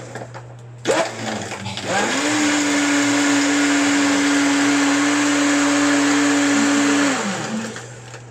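Electric blender blending an iced coffee drink: a sharp clack about a second in, then the motor spins up at about two seconds, runs at a steady pitch for about five seconds and winds down near the end.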